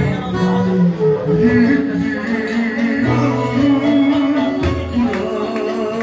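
Live Turkish music amplified through a club's PA speakers: a male singer's voice over a band, with sustained wavering melody lines.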